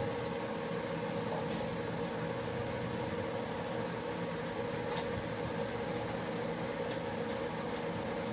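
Steady mechanical hum of an electric cooktop's fan, with a pot of chicken broth boiling on it and a few light clicks along the way.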